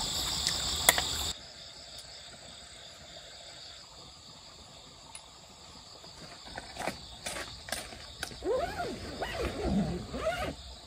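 Crickets chirping steadily at first, cut off about a second in. Near the end come a few clicks, then a dog's whines and grumbles that rise and fall in pitch.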